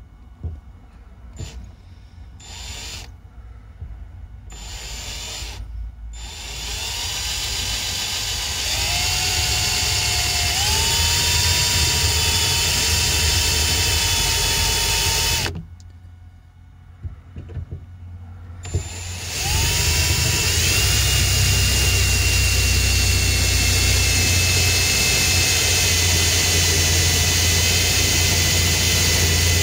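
Bauker 18V cordless drill drilling into a thin metal bracket. It gives a few short trigger bursts, then the motor runs steadily with a whine that rises as it comes up to speed. It stops about halfway through, gives a few more short bursts, and runs steadily again.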